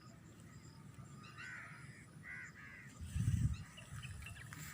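Crows cawing a few times, faint, over a quiet outdoor background, with a brief low rumble about three seconds in.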